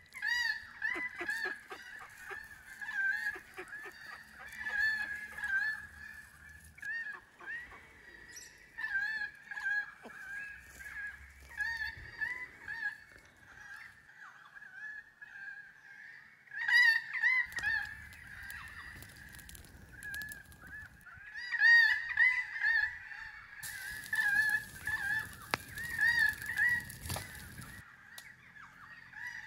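Domestic waterfowl honking over and over in short bursts of calls, loudest in the second half. A steady hiss joins in for a few seconds near the end.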